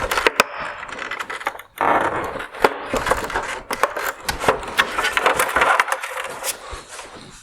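T10 Torx screws being backed out of a plastic headlight bezel by hand: dense rasping and creaking of screw threads in plastic, with many sharp clicks and a brief pause.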